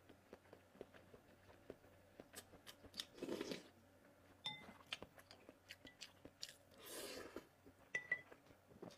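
Close-up eating sounds: soup slurped from a spoon about three and seven seconds in, with soft chewing and mouth clicks in between. A spoon clinks against a ceramic bowl twice, briefly ringing.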